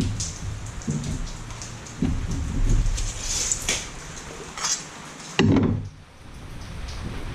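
Irregular knocks, taps and clatter of wood being handled, with a few sharp clicks and a louder thump about five and a half seconds in.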